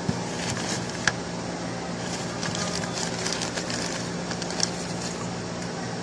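Steady low machine hum of workshop background noise, with a few light clicks and taps of small parts being handled on a metal workbench.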